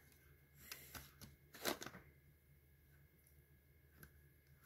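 Faint handling noise of plastic cassette cases: a few soft clicks and rustles in the first two seconds, then near silence.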